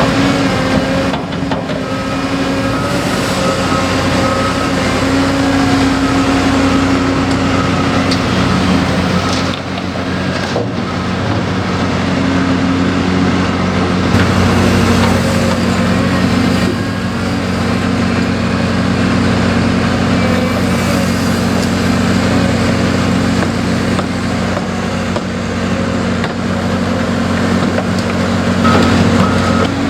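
Diesel engines of heavy construction machinery running steadily under work, their pitch shifting as the machines load and move. A backup alarm starts beeping near the end.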